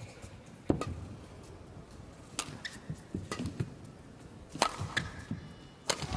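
Badminton rally: rackets striking the shuttlecock, a sharp crack every one to two seconds, about five hits in all.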